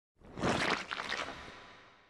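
A single sound effect: a noisy rush that starts a moment in, swells quickly, then fades away over about a second and a half.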